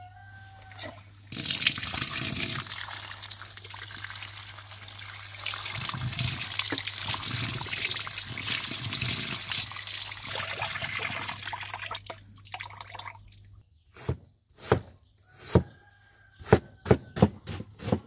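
Water running steadily from a tap onto a plate of cut beef tail pieces as they are rinsed by hand; it stops about twelve seconds in. Then a knife strikes a wooden cutting board in a quick series of chops while slicing an onion.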